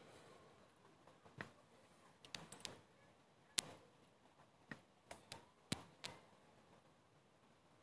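Near silence, broken by about ten faint, sharp clicks and taps from a hand handling small objects, scattered through the middle seconds; the loudest comes in the middle.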